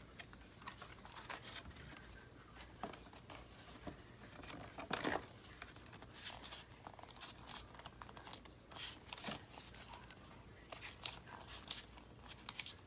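Paper and cardboard packaging being handled on a craft table: scattered rustling, crinkling and light taps, with a louder crinkle about five seconds in.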